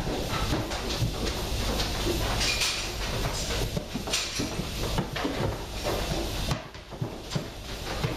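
Goats' hooves clattering and knocking on the raised platform of a milking parlour, with knocks from the metal rails, over a steady low machine hum that drops away about two thirds of the way through.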